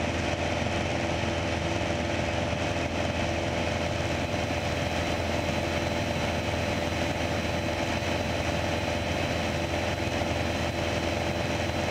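Piper PA-28 Archer's four-cylinder piston engine and propeller droning steadily in cruise, heard from inside the cockpit.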